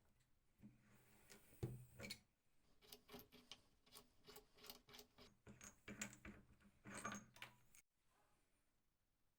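A run of light clicks and knocks, several a second, from the parts of an old hand drill being worked on. The loudest single knock comes about a second and a half in, and the clicking stops abruptly near the end.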